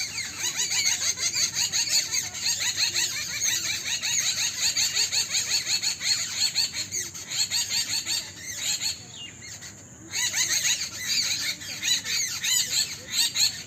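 A dense chorus of many small birds chirping rapidly and overlapping. It thins out for about a second and a half just past the middle, then picks up again.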